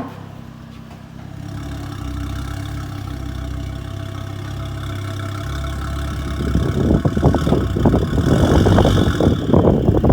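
Mk2 Ford Focus ST's turbocharged 2.5-litre five-cylinder engine running with a steady low note, getting much louder and rougher from about six seconds in.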